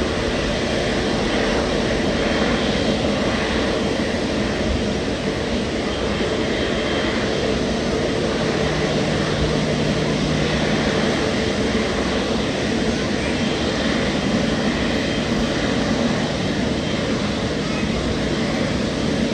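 Jet airliner engines running, a steady loud rush of engine noise with a faint hum under it.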